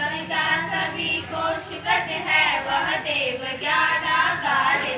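Young girls' voices singing a prayer together into a microphone.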